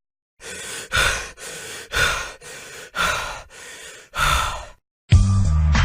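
A person breathing heavily, about four loud sighing breaths roughly a second apart. Near the end, bass-heavy music cuts in.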